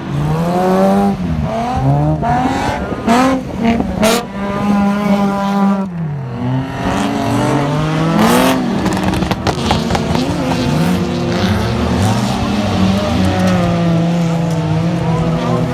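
Dirt-track race cars with engines over 1600 cc revving hard and dropping back through gear changes, their engine notes rising and falling over and across one another as they lap the track. A few short noisy bursts cut through, about three and eight seconds in.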